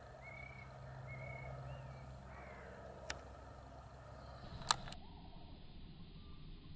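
Northern goshawk calling overhead: four short, thin, whistled wailing notes in quick succession, some held level and some arching up and down. Two sharp clicks follow about three seconds in and just before five seconds, the second the loudest sound.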